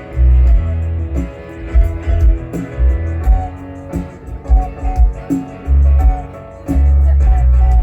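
Live band playing through a concert PA without vocals: guitar over a heavy, pulsing bass and drum beat.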